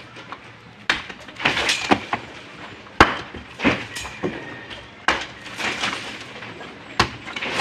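Hammer blows against a plastered concrete wall being demolished: sharp, irregular strikes about every second, some with a short ring, with chunks of plaster and concrete breaking off.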